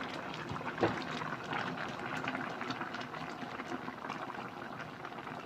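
Pot of Thai red curry with coconut milk bubbling on the heat, a steady crackle of small bubbles, with one brief knock about a second in.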